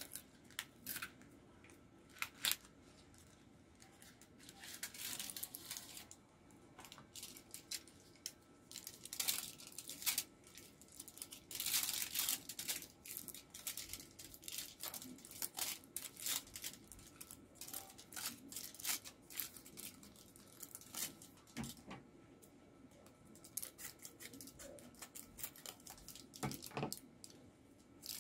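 Cardboard candy box being opened at its end flap, then a foil pouch pulled out and handled: sharp, irregular crinkling and rustling of the foil in short bursts.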